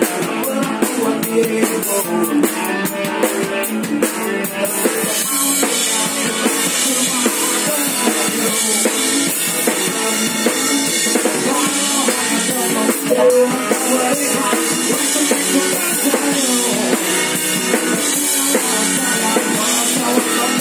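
Live band playing, heard close to the stage with a drum kit loudest: snare, bass drum and cymbals played over keyboard and other instruments. The sound is thin in the bass.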